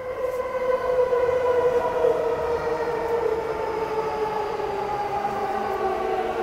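Keihin-Tohoku Line E233 series electric train passing close, its motors giving a whine in several tones that slowly falls in pitch as the train slows, over a low rumble of wheels on rails.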